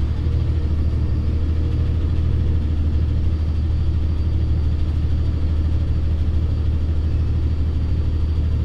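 DAF CF truck's diesel engine running steadily at low revs, a deep even rumble.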